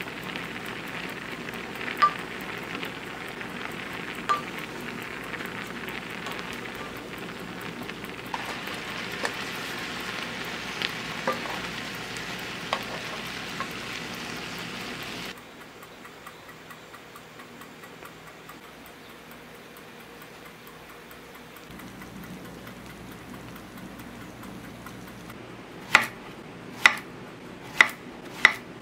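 Rice and water boiling hard in an open pot over a gas flame: a steady bubbling hiss with occasional pops, which cuts off abruptly about halfway. Near the end, a kitchen knife slicing Korean zucchini onto a wooden cutting board, four sharp knocks about a second apart.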